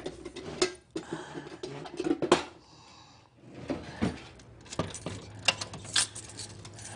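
Handling noises at a wooden office desk: a drawer being worked and small objects moved about, a string of irregular clicks, knocks and rattles. Near the end, keys rattle at the lock of a glass door.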